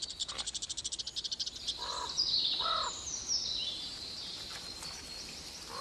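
Small birds calling in a forest: a rapid high trill of about a dozen pulses a second, then, about two seconds in, a descending run of high chirps.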